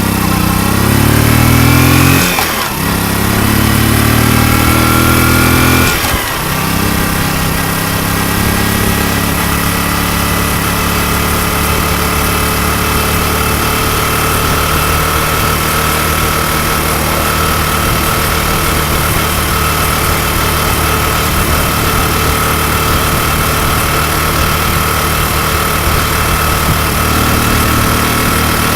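Honda Super Cub 90 four-stroke single-cylinder engine, bored up to 105 cc, revved twice in the first six seconds and then idling steadily. With a manual cam chain tensioner fitted, the cam chain ticking is no longer heard.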